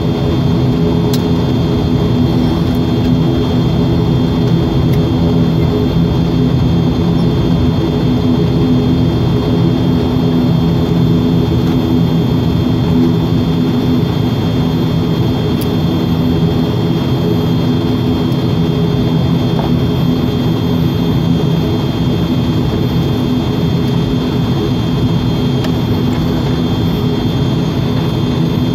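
Turboprop airliner's engines running at taxi power, heard from inside the passenger cabin as a loud, steady drone with several fixed hum tones.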